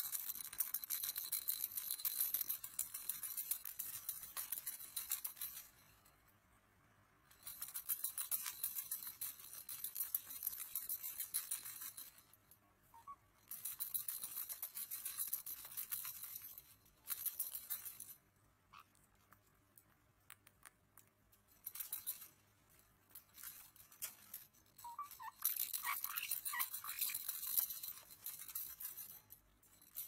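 White-bellied caiques rattling and scratching about on a wire cage, in bouts of fast, fine clicking split by short quiet gaps. A few short, high squeaks come near the end.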